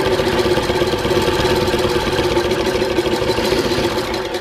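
Singer 128 vibrating-shuttle sewing machine running steadily, its needle stitching through four layers of denim with a fast, even clatter. It starts winding down near the end.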